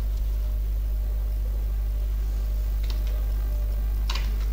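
Steady low electrical hum from the recording setup, with two short clicks about three and four seconds in, typical of a computer mouse clicking.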